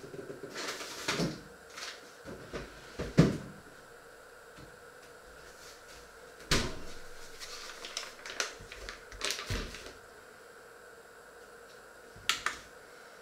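Scattered knocks, clatters and rustles of kitchen things being handled and set down, the loudest knock about three seconds in, with a quick double click near the end.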